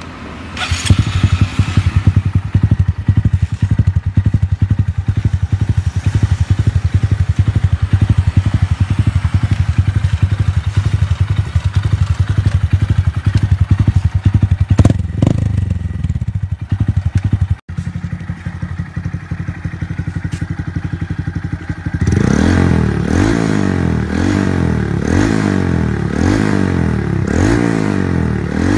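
Honda Monkey 125's single-cylinder four-stroke engine running through an aftermarket exhaust. It starts about a second in and idles with a steady, even beat, then about three quarters of the way through it is revved repeatedly, each rev rising and falling back roughly once a second.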